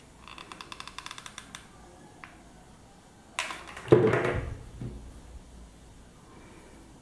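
Hot glue gun's trigger being squeezed, a quick run of clicks, about ten a second, for a second and a half. A single louder knock follows about four seconds in.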